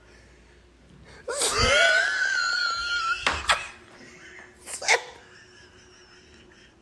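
A person lets out one long, high-pitched wail of about two seconds, the pitch wavering, followed by two sharp knocks a second and a half apart.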